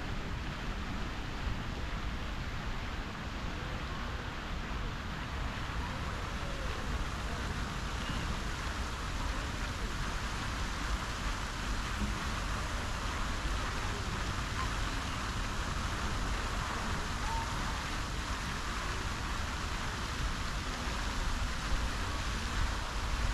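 Fountain jets splashing steadily into a lake, an even hiss of falling water, over a low rumble of wind.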